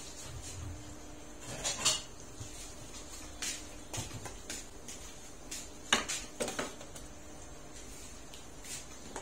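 Scattered knocks and clinks of kitchen items being handled and set down on a counter, loudest about two seconds in and again about six seconds in, over a steady low background hiss.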